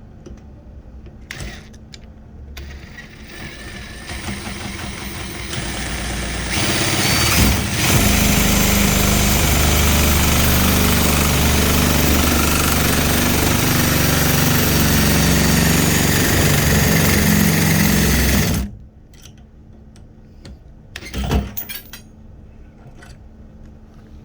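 Power drill boring out the water stopper inside a quick-connect hose coupling. The drill builds up over a few seconds, runs loud and steady for about twelve seconds, then stops suddenly. A brief clatter follows a couple of seconds later.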